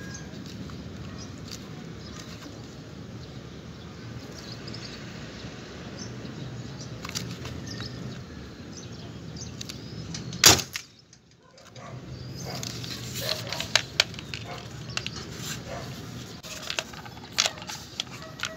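Homemade alcohol-fuelled pipe gun (boga) firing: one sharp, loud bang about ten seconds in, with the sound cutting out for about a second right after it. Scattered clicks and knocks follow over a steady background hum.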